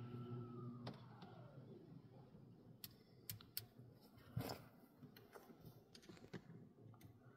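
A car wash machine's steady hum winds down about a second in, sliding lower in pitch, leaving near silence with faint scattered clicks and ticks.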